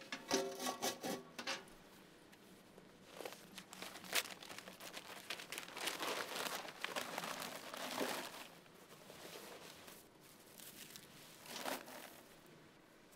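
Rustling and crinkling handling noise with a few sharp clicks, loudest about six to eight seconds in.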